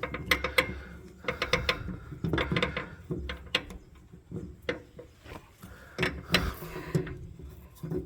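Irregular metallic clicks and clanks of hand tools being worked on a metal part while it is being tightened.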